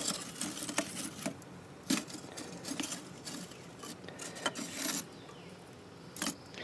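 Pieces of lump charcoal being moved and stacked by hand in a kamado grill's ceramic firebox: irregular scraping and rubbing with scattered short clinks as the chunks knock together.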